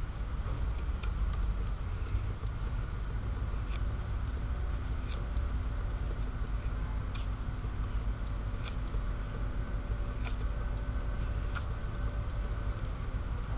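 Mora 510 Black knife whittling a stick, the blade shaving wood in scattered light clicks, over a steady low rumble.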